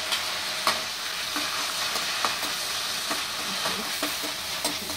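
Paneer cubes sizzling steadily in hot oil in a kadhai, with a few sharp clicks as the cubes are tipped in and pushed around with a steel ladle.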